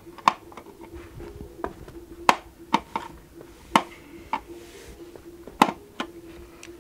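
Small screwdriver clicking and scraping against the hard plastic base of a model car's display case, about seven sharp, irregular clicks, over a faint steady hum. The screwdriver is the wrong size and won't seat in the screws.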